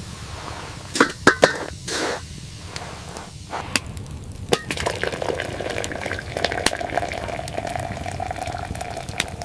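A few sharp knocks, then from about halfway in a steady stream of water being poured into a basin, with small clicks and splashes.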